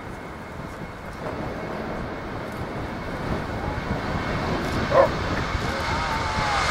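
Jet airliner's engines running with a steady rumble and a thin high whine, slowly growing louder as the aircraft powers up for take-off. A brief sharp sound stands out about five seconds in.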